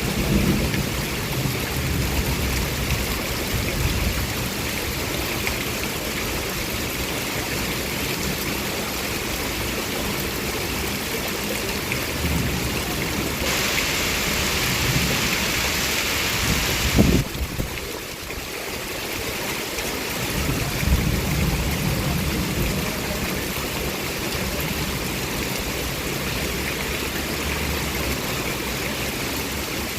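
Heavy rain falling steadily as a dense hiss, with low rumbling coming and going. The hiss grows louder for a few seconds and ends in a single sharp knock about seventeen seconds in.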